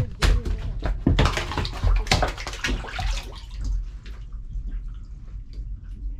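Freshly caught fish, a large grouper among them, splashing and thrashing in the water of a boat's fish hold. The splashing is busiest in the first three seconds, then dies down to scattered drips.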